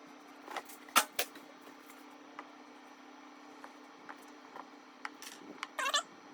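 A few sharp clicks and knocks from objects being handled, two close together about a second in and a cluster near the end that finishes in a short wavering squeak, over a steady low hum.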